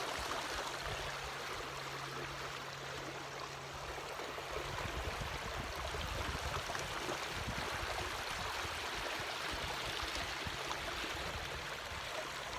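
Steady rush of moving water, with a low steady hum underneath that stops about five seconds in, after which an uneven low rumble continues.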